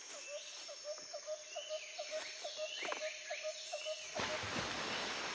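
A bird calling: short repeated notes about four a second, with a few higher rising whistles among them. About four seconds in, a steady hiss of noise comes in and carries on.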